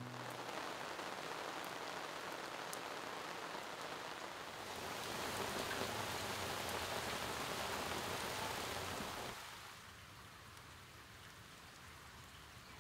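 Rain falling on a surface: a dense, even hiss with a few faint drop clicks, growing louder about a third of the way in and dropping to a softer level near the end.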